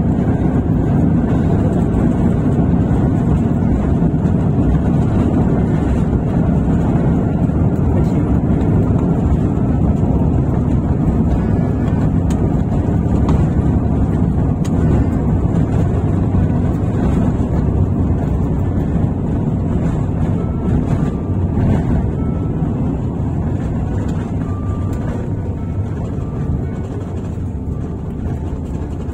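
Cabin noise inside an Airbus A350-1000 on its landing roll: a steady low rumble of engines and wheels on the runway that slowly eases as the aircraft decelerates.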